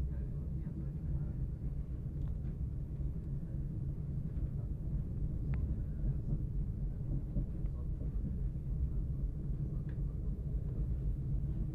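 Steady low rumble of a Lastochka (Siemens Desiro RUS) electric train running along the track, heard from inside the passenger car, with a few faint clicks.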